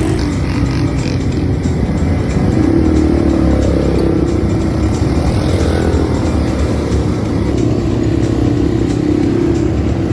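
A vehicle engine running steadily, its pitch drifting up and down a little.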